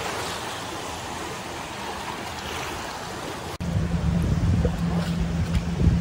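Small waves breaking and washing over the shallows in a steady hiss of surf. About three and a half seconds in, the sound cuts to a louder, steady low engine drone mixed with wind rumble.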